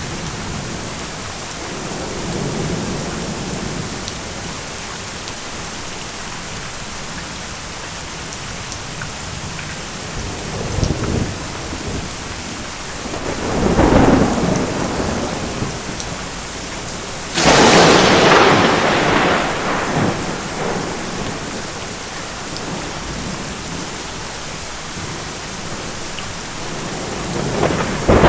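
Thunderstorm: steady rain with several rolls of thunder. The loudest is a sudden close thunderclap about two-thirds of the way through that rumbles away over a few seconds, and another roll builds near the end.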